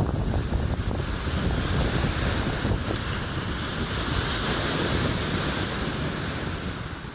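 Ocean surf washing with wind buffeting the microphone: a steady rushing noise with a deep rumble underneath.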